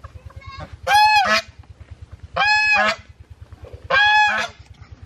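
Three loud farm-animal calls about a second and a half apart, each about half a second long and rising then falling in pitch, over a low, fast, steady throb.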